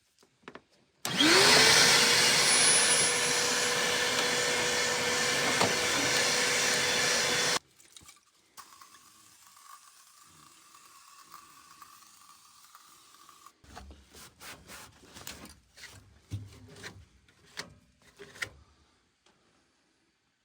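Electric polisher spinning up about a second in, its motor whine climbing and then holding steady for about six seconds before cutting off abruptly. Then faint light clicks and knocks follow.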